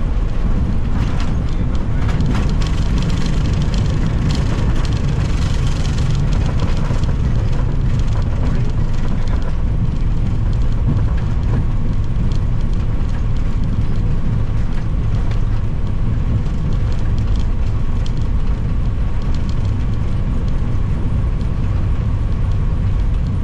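Airbus A320 landing rollout just after touchdown, heard in the cockpit: a loud, steady rumble of engines and wheels on the runway. Heavy rattling through the first several seconds eases after about eight seconds.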